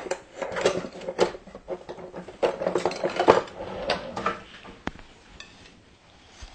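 A slice of crisp-crusted pizza being cut free and lifted out: quick clicks, scrapes and crunches of a utensil working through the crust, busiest in the first four seconds and dying away after.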